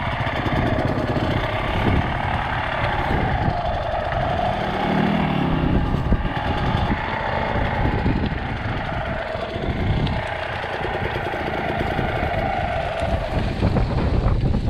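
Motorcycle engine running steadily, its pitch wavering up and down as the revs change.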